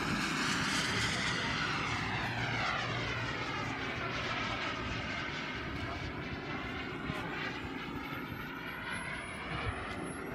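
Single-engine RC model jet flying past, its engine a steady rushing whine. The whine is loudest in the first couple of seconds, and its pitch bands sweep down and then back up as the plane passes and moves off.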